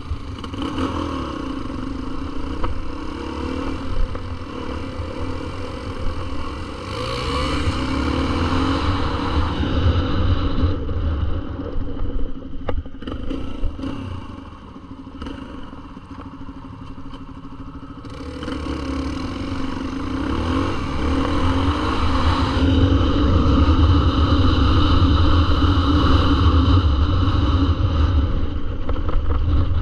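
Dirt bike engine running along a trail. The revs climb and drop as gears change, ease off for a few seconds around the middle, then pull loudest through the last third.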